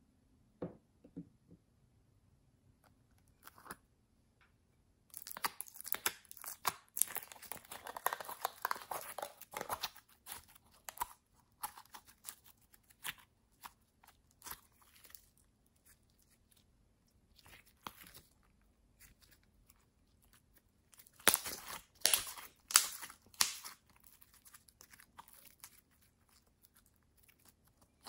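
Yellow slime squeezed and stretched by hand, with bursts of crackling, popping clicks. A long dense stretch of crackling comes about five seconds in, and a shorter, louder cluster of pops comes past the middle.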